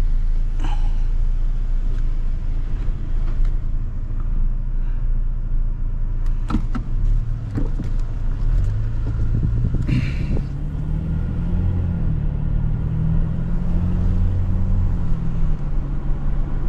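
A loaded truck driving, with a steady low engine and road rumble. Its engine note rises about halfway through as it picks up speed, and a few short clicks and rattles come through.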